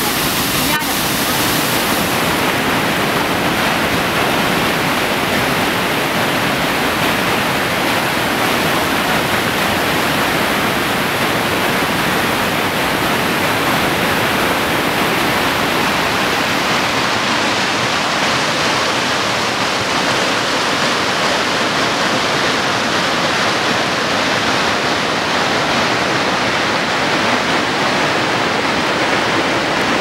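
Waterfall: a continuous, steady rush of falling water. Its tone shifts slightly about two seconds in and again a little past halfway.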